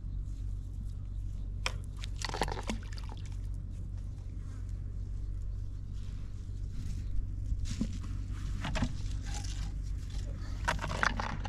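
Outdoor ambience: a steady low rumble with a few short, sharp noises scattered through it, around two seconds in, near the middle and near the end.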